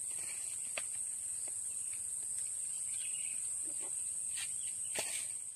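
Steady high-pitched insect drone, with a few sharp clicks.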